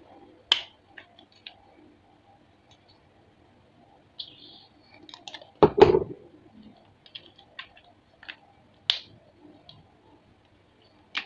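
Plastic parts of a spray bottle's trigger sprayer clicking and knocking as they are handled and fitted back together: scattered small clicks, with a louder knock about six seconds in.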